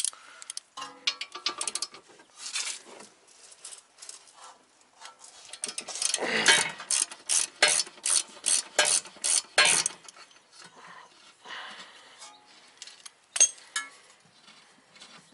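Hand ratchet with a 21 mm socket clicking in quick repeated strokes, loosening a rear shock absorber bolt; the clicks come fastest and loudest from about six to ten seconds in.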